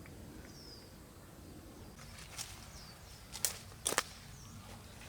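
A small bird's short, high, falling chirp repeating every couple of seconds over quiet rural background noise, with a few sharp clicks near the end.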